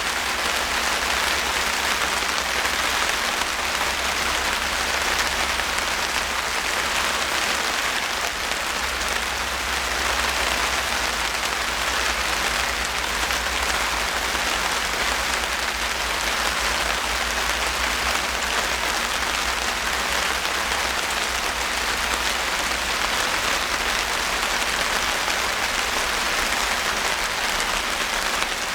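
Steady rain falling and pattering on surfaces in a dense, even hiss, with a low rumble underneath.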